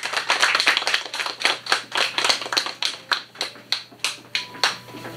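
Small audience applauding by hand, the claps thinning out to a few scattered ones and stopping near the end.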